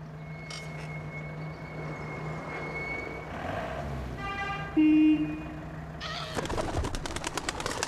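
Tram running: a steady low electric hum over a rumbling ride noise, with a short run of pitched beeps about four seconds in, a brief loud buzzing tone just after, and rapid clicking rattles near the end.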